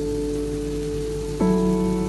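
Sustained keyboard chords of background music, the chord changing about one and a half seconds in, over a steady sizzle of chicken frying in its sauce in a pan.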